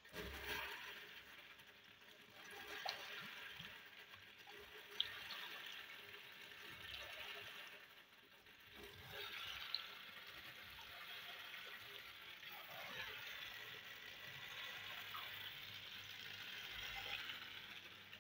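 Faint running water: a steady, hissing rush that swells and fades in waves, with a few light clicks.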